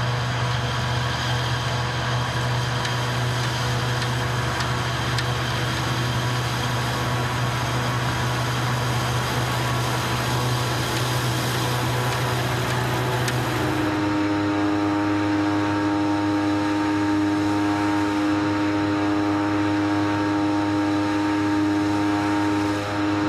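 Claas Jaguar self-propelled forage harvester running steadily at working speed, a loud mechanical drone with a hiss and steady whining tones. About fourteen seconds in the sound changes abruptly: the hiss drops away and a lower, stronger steady whine takes over.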